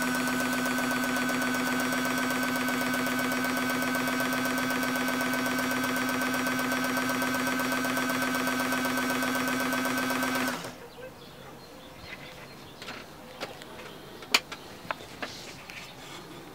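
Belt-driven Bernina 117-11-K sewing machine running at a steady speed with an even hum, cutting off suddenly about ten seconds in. A few light clicks follow, with one sharp tap about four seconds after it stops.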